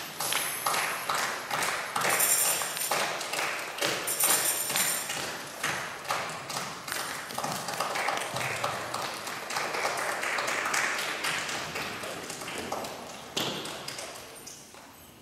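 Percussion beating a steady dance rhythm of about two strikes a second, with a tambourine's jingles ringing over it; it fades out near the end.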